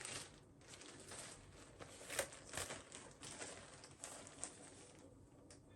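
Soft, intermittent rustling and crinkling of packaging as items are handled and pulled out of a parcel, with a few sharper crackles about two seconds in.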